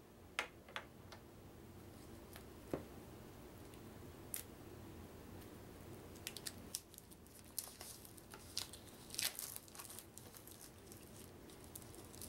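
Plastic wrapping on a game's cardboard token sheets being picked at and torn open with fingers: faint scattered crinkles and ticks, busier about seven to ten seconds in.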